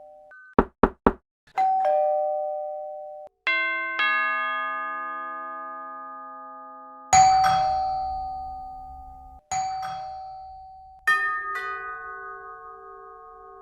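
A series of different doorbells chiming, each a two-note ding-dong that rings out and fades, the pitch changing from one doorbell to the next. Three quick knocks come about half a second in.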